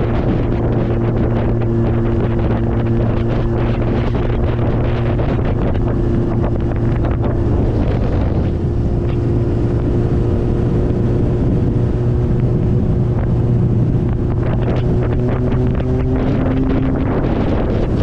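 1999 Kawasaki ZX-9R's inline-four engine running steadily, with a slight shift in its pitch around the middle and again near the end.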